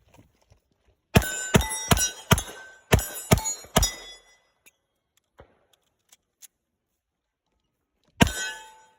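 A quick string of seven gunshots about half a second apart, several followed by the ring of struck steel targets, then a pause of about four seconds and another shot near the end.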